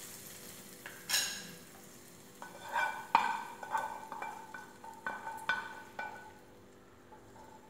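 Hot coconut-oil tempering sizzling briefly as it meets the curry about a second in, followed by a run of ringing metal clinks and scrapes of a utensil against the steel pot in the middle, which die away near the end.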